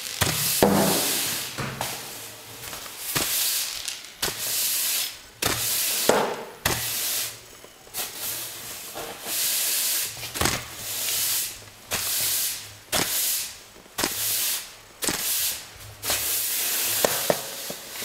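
Stiff bristles of a push broom sweeping a hard floor in repeated strokes, each a short scratchy hiss, roughly one stroke a second, with sharp knocks of the broom head between some strokes.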